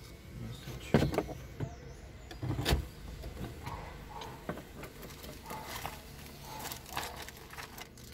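Inside a moving or idling car: a steady low rumble of engine and road, with a sharp knock about a second in and another thud near three seconds.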